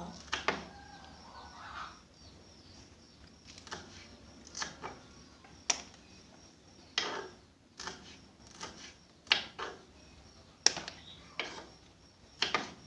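Knife slicing bird's-eye chilies diagonally on a cutting board: irregular sharp chops against the board, roughly one a second.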